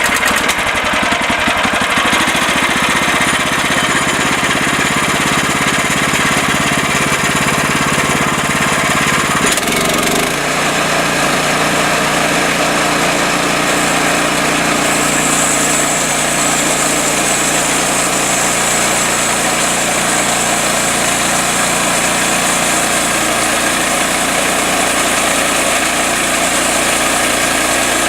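Small gasoline engine catching just as it starts, then running steadily, its note shifting to a new steady pitch about ten seconds in.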